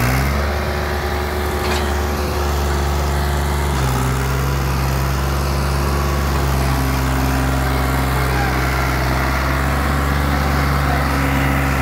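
New Holland 3630 tractor's three-cylinder diesel engine running steadily under load, pulling a four-wheel trolley, with the engine note shifting slightly about four seconds in.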